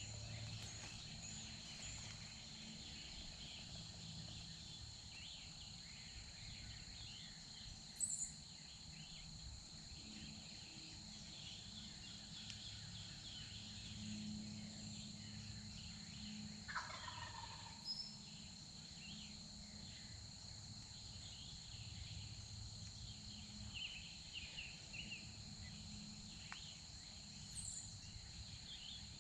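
A wild eastern turkey gobbler gobbling once, faint, about two thirds of the way in, over a steady high insect drone and scattered small songbird chirps.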